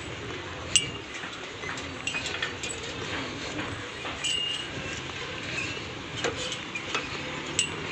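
Scattered metallic clinks and rattles from a cable-hung suspension footbridge as it is walked across, with two sharper clanks about a second in and near the end.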